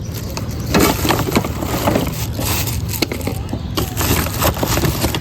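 Rummaging through a pile of parts by hand: a run of irregular small knocks, scrapes and clatters, with a low hum underneath.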